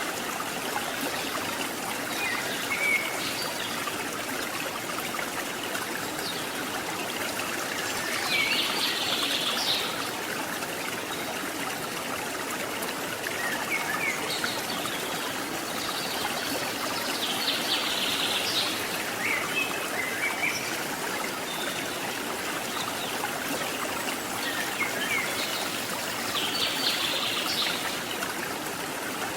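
Steady rush of river water flowing over the top of a waterfall. A bird gives a short high call three times, about nine seconds apart, with a few fainter chirps in between.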